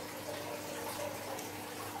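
Soft, wet, sticky crackling of glossy slime as it is folded onto a coiled pile and settles, over a steady low hum.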